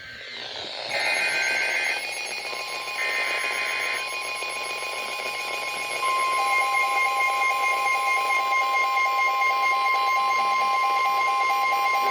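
Emergency Alert System broadcast tones: two short bursts of the digital header, about a second apart, then a steady two-tone attention signal that comes in fully about six seconds in, announcing a severe thunderstorm warning.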